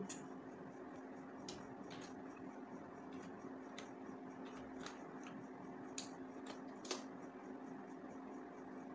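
Sparse keystrokes on a computer keyboard, single sharp clicks about a half second to a second apart, over a faint steady hum.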